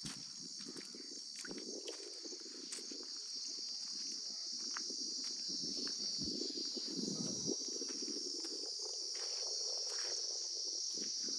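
Insects chirring steadily in a high, even drone, with faint scattered clicks and rustling underneath.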